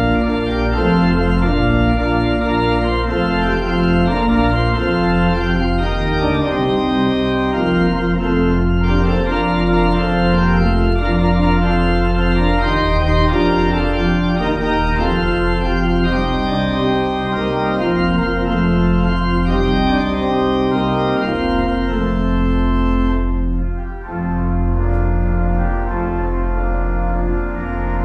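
Church organ playing sustained full chords over deep bass pedal notes, with a brief drop in loudness near the end as the chords change: the postlude after the benediction.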